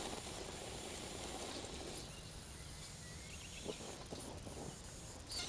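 Faint outdoor background noise with no engine or motor tone, and a few small clicks and scrapes near the end.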